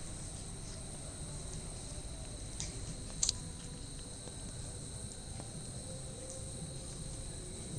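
Steady high-pitched insect drone, like crickets trilling without a break, with one short sharp sound about three seconds in.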